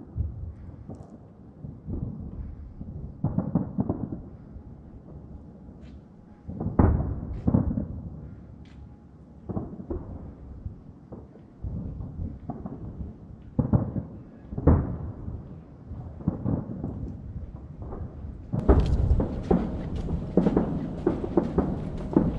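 Aerial firework shells bursting: single booms that rumble away, coming irregularly every second or two, then a dense run of quick bangs in the last few seconds.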